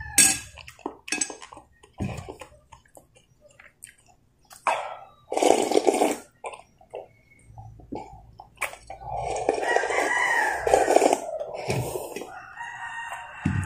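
Slurping of pork broth drunk straight from a glass bowl, with a rooster crowing in the background. The crowing comes in spells, one of them near the end.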